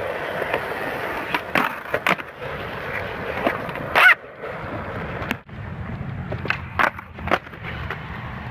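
Skateboard wheels rolling on concrete with a low rumble, broken by several sharp clacks and hits of the board. The loudest hit comes about four seconds in.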